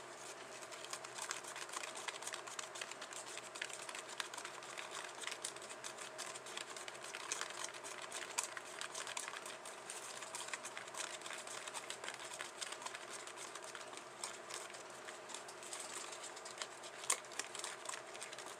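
Small plastic spoon scraping and clicking against a plastic candy-kit tray as powdered candy mix and water are stirred into a paste: rapid, irregular small clicks, with one sharper click near the end.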